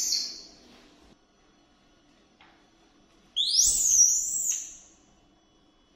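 Young macaque giving a high-pitched call that rises sharply and then wavers, about a second and a half long, starting a little after three seconds in. The end of a similar rising call is heard at the very start.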